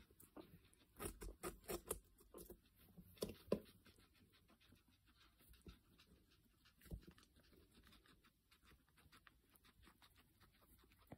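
Guinea pig chewing beetroot: faint, crisp crunching clicks, busiest in the first few seconds and then sparser.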